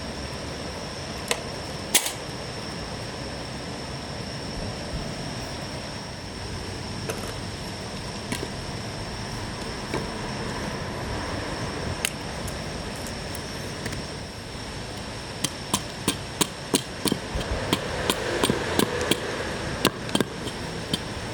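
Wood being chopped: a few scattered sharp knocks, then from about three quarters of the way in a quick, regular run of knocks, roughly three a second, over a steady high hum.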